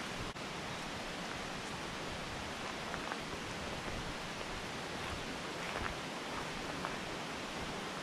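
Steady rush of a mountain stream: an even hiss of flowing water, with a few faint clicks.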